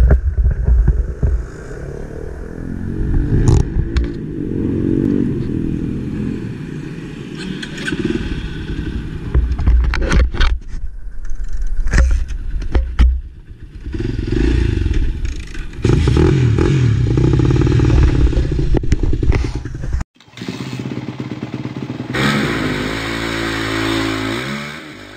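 Enduro motorcycle engine running and revving, its pitch rising and falling as it is ridden, with clatter and sharp knocks. The sound breaks off abruptly about twenty seconds in and resumes with a different engine tone that glides up and down.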